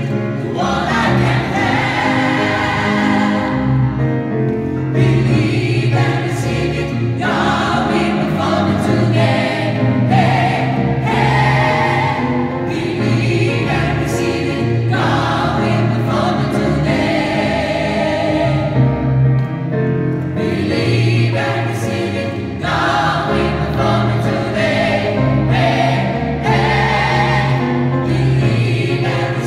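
Gospel choir of women and men singing together, accompanied by an acoustic guitar.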